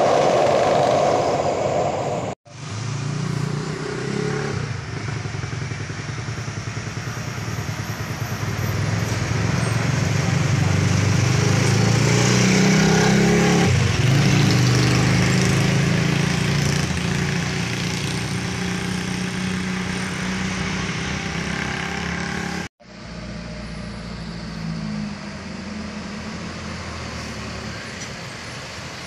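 Road traffic passing close by. Diesel trucks' engines swell and fade as they go past, with motorcycles among them, the loudest pass about halfway through. Near the end a coach bus and another box truck go by. The first two seconds carry the end of a passenger train's noise as it crosses a steel truss bridge.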